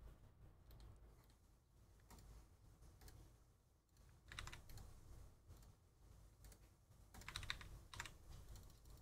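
Faint computer keyboard typing and mouse clicks in scattered short clusters, busiest about four seconds in and again around seven to eight seconds in.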